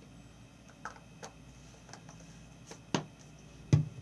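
A few sharp taps and knocks from a utensil against the container while stirring shampoo-and-salt slime, the loudest two about three seconds in and near the end.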